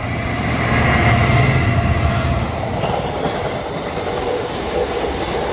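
Diesel freight locomotive hauling an oil tank train past, its engine working with a steady low drone for the first two and a half seconds, then the rumble and clatter of the tank wagons rolling over the rails.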